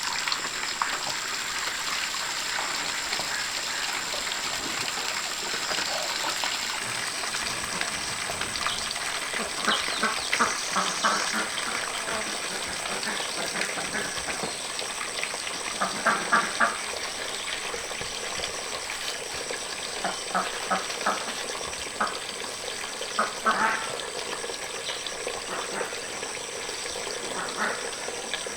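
Ducks quacking in short runs of quick calls now and then, over a steady high-pitched hiss.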